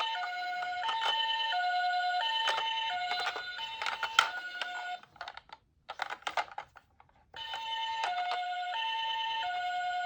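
Electronic two-tone hi-lo sirens of toy emergency vehicles, with two patterns alternating between a high and a low note about every 0.7 s. The sirens cut out about five seconds in, leaving a few clicks and rattles, and start again about two seconds later.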